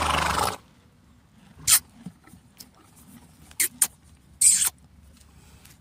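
A horse snorting, blowing hard through its nostrils: a half-second snort at the start and a shorter one about four and a half seconds in, with a few sharp clicks between.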